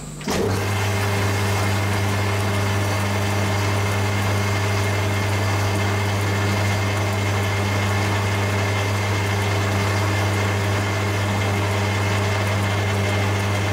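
Metal lathe starting up about a third of a second in and then running steadily at a slow 130 RPM with a strong even hum, while a wooden clamp lined with abrasive paper polishes the spinning cast iron piston.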